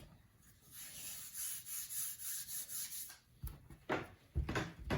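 Hands rubbing flour onto a rolling pin in quick, even swishing strokes, about three a second, followed by a few dull knocks as the pin is handled.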